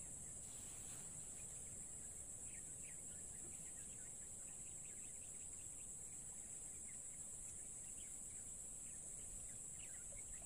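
A steady high-pitched insect drone, like crickets or cicadas, with faint short chirps scattered through it.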